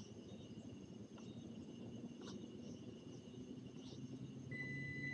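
Evening field insects chirping steadily in a high, pulsing trill over a low rumble. About four and a half seconds in, a steady high whine starts: the electric motor and gears of a Traxxas TRX-4M RC crawler.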